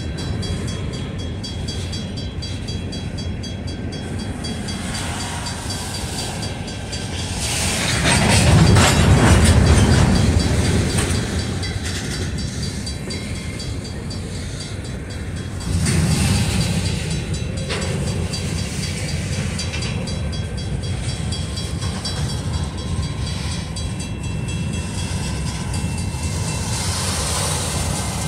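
Freight train of covered grain hopper cars rolling past close by: steady wheel-on-rail rumble with clickety-clack. It swells louder about eight to eleven seconds in, and steps up again briefly about sixteen seconds in.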